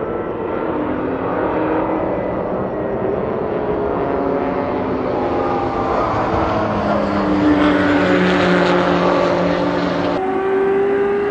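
Racing car engines at high revs from a Mazda MX-5 Miata and an R32 Nissan Skyline GT-R chasing each other on a circuit. Several engine notes rise and fall. The sound swells loudest as the cars pass close, about two-thirds of the way in, and changes abruptly near the end.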